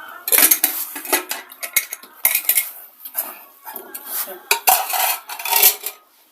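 Spoons and utensils clinking and scraping against metal dishes in quick, irregular knocks, as food is served and eaten.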